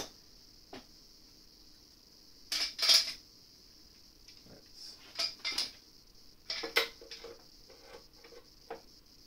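Metal clanks and clinks as a steel clamp is handled and fitted onto a metal rig, in several separate bursts, the loudest just under three seconds in, with lighter ticks near the end.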